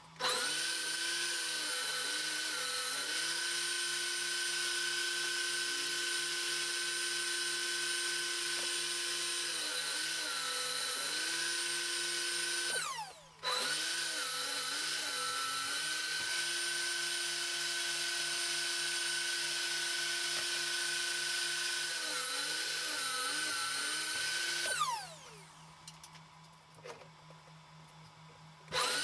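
Metabo TS254 table saw running with a loud, steady whine as panels are cut, the pitch sagging briefly at moments. It cuts out about halfway and starts straight up again, winds down with a falling whine near the end, then starts up once more just before the end.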